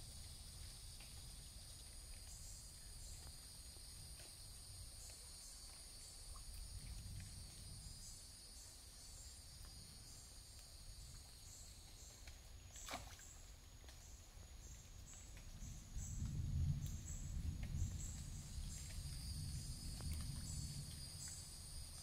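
A steady, high-pitched insect chorus with a chirp repeating every half second or so, over a low rumbling noise that grows louder in the last third. A single sharp click comes just past halfway.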